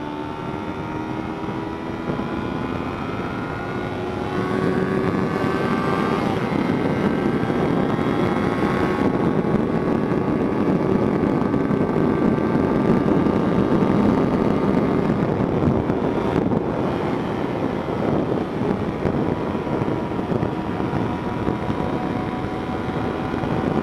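A small Kawasaki Ninja's parallel-twin engine pulling hard at high revs on a top-speed run, its pitch climbing slowly as speed builds, under heavy wind rush. The sound grows louder about four seconds in.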